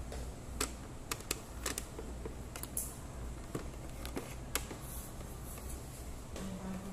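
Scattered light clicks and taps, irregular and a second or so apart, over a steady low hum.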